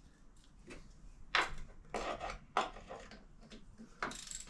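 A few separate metallic clinks and taps from hand tools on the motorbike's oil drain plug as it is threaded in and snugged lightly.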